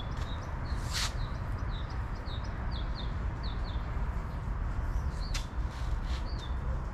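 A bird calling in a steady series of short, high chirps, a couple a second, over a low rumble of wind or handling on the microphone. Two sharp clicks cut in, about a second in and again near the end.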